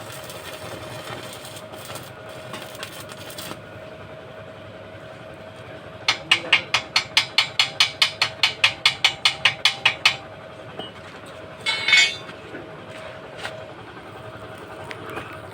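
A quick run of about twenty sharp metal strokes, some five a second, lasting about four seconds, as a hand tool works the welded steel. A short scrape follows about two seconds later, over a steady hum.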